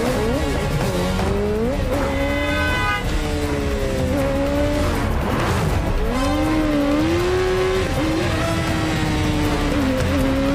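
BMW S1000RR sport motorcycle's inline-four engine revving hard at speed, its pitch climbing and dropping again and again through gear changes, over a film score.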